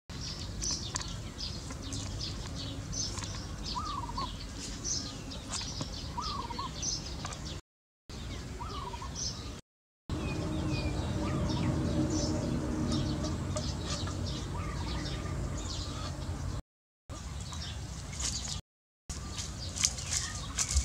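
Small birds chirping steadily, with a few short clucking calls from chickens. A low steady hum runs through the middle, and the sound drops out to silence several times for a moment.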